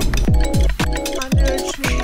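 Background electronic music with a steady beat of deep kick drums and crisp hi-hats under sustained chords.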